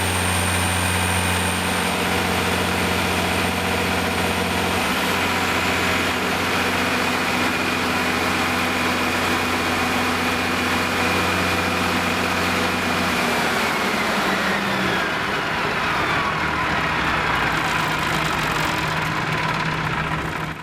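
Kohler 350 kW Detroit Diesel generator set running steadily. Past the middle a whine glides down in pitch and the low hum changes.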